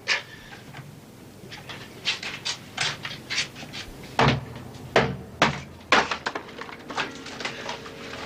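Irregular sharp knocks, taps and scrapes from a wall air-vent grille being worked loose by hand, about a dozen hits, the loudest bunched about four to six seconds in.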